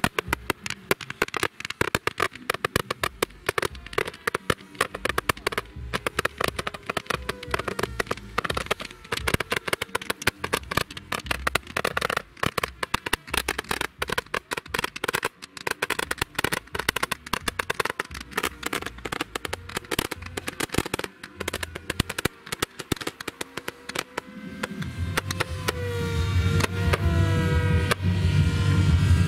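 Ground-launched fireworks crackling and banging in a rapid, dense barrage of fountains and comet shots. About twenty-five seconds in, music with a heavy beat comes in and grows louder.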